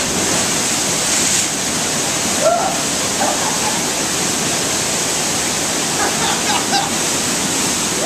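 Waterfall pouring into a plunge pool: a steady, loud rush of water, with brief voices heard faintly twice.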